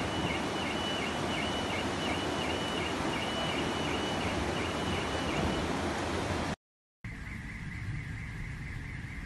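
Rushing floodwater, a loud steady roar of noise, with a high beep repeating about three times a second above it. The sound cuts out briefly about seven seconds in, then resumes as quieter water noise with the same kind of fast high beeping.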